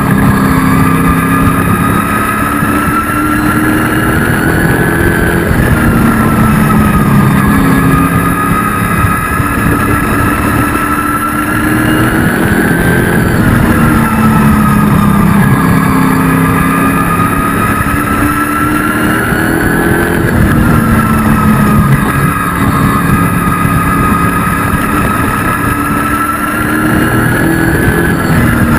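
Race truck's engine heard from inside the cab at racing speed. Its pitch climbs steadily and then drops back sharply, over and over about every seven to eight seconds, as the truck laps the oval.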